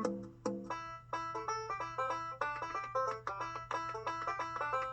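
Lively instrumental music on a plucked-string instrument, a quick run of short notes.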